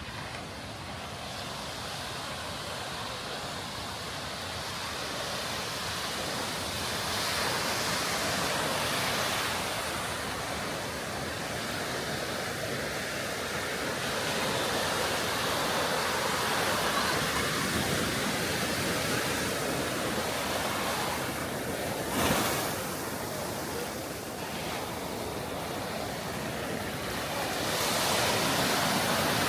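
Surf breaking on a beach from a rough, choppy sea: a steady rush of waves that swells and eases every few seconds. A brief thump stands out about two-thirds of the way through.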